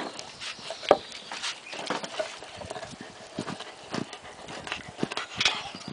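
Labrador puppy gnawing a raw meaty bone: irregular clicks and knocks of teeth on bone and of the bone against the paving, the loudest about a second in.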